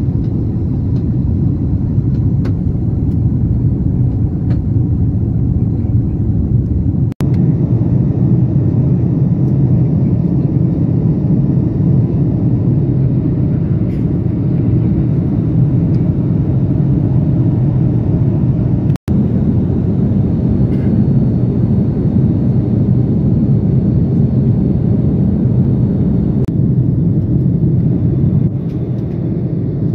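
Airbus A330-900 cabin noise in flight: a steady low rumble of the engines and airflow heard through the fuselage. It drops out for an instant twice, about a quarter and about two-thirds of the way through.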